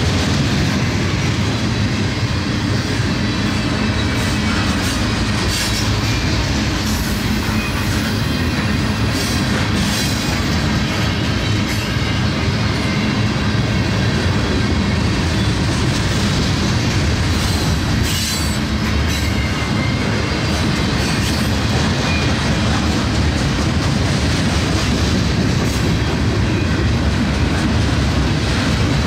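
Freight train rolling past at close range: steel wheels clicking over rail joints with a steady rumble, and now and then a thin wheel squeal.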